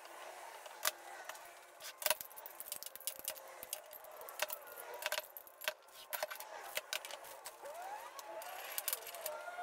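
Metal woodworking clamps being handled: irregular clinks, clacks and knocks of steel bar clamps and clamp heads against each other and the bench, with the sharpest knocks about one and two seconds in.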